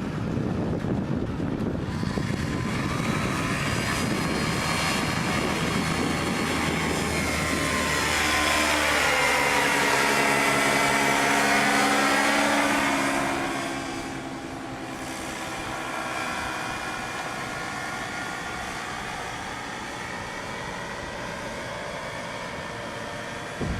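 Paramotor engine and propeller droning as it flies past, building to its loudest around the middle, then dropping away to a quieter hum with wind on the microphone.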